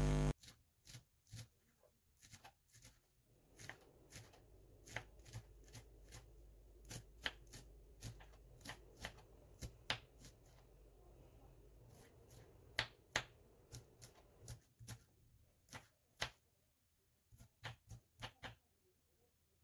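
Kitchen knife chopping spring onions on a wooden cutting board: faint, irregular knocks of the blade on the wood, with a short pause a little past halfway.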